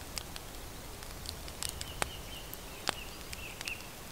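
Small wood fire burning in a twig stove, crackling with sharp, irregular pops.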